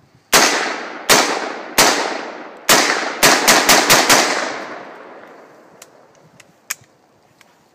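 AR-15 rifle firing nine shots: four about three-quarters of a second apart, then a quick string of five, the reports echoing and dying away over about a second. A few faint clicks follow.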